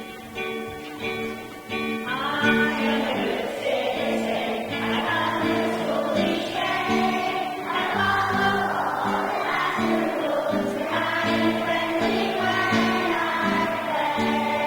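A group of schoolchildren singing a song together in unison over an instrumental accompaniment. The accompaniment plays alone at first, and the voices come in about two seconds in.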